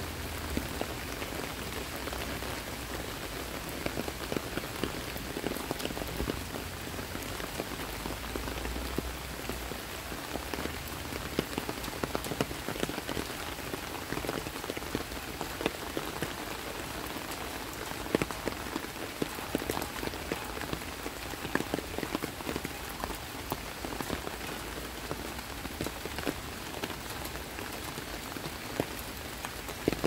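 Steady rain falling on dense tropical foliage and wet paving, with frequent sharp taps of single drops landing close by.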